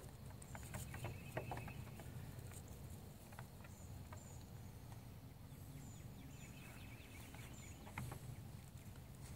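Nigerian Dwarf goat kids' small hooves tapping and scuffling on a wooden cable spool and a tree stump: scattered light clicks, the sharpest about a second and a half in and near the end.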